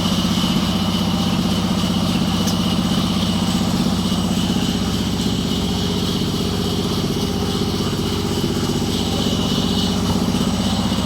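An engine running steadily at an even speed, with a thin steady high whine over it.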